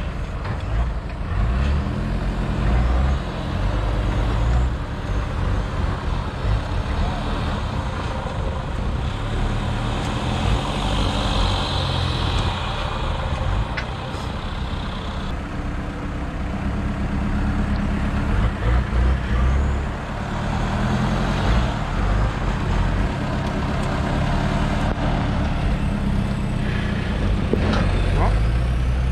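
Off-road 4x4's engine running under load, its revs and level rising and falling unevenly. A high steady whine joins for several seconds in the middle.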